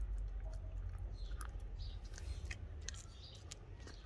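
An F1 Savannah cat chewing on a raw chicken leg: irregular wet bites and sharp clicks of teeth on meat and bone, coming thicker from about a second in, over a steady low rumble.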